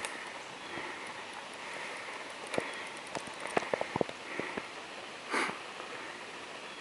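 Hiker walking on a leaf-covered trail: soft repeated footfall swishes with a cluster of sharp clicks and snaps in the middle, and a short loud sniff or breath about five seconds in.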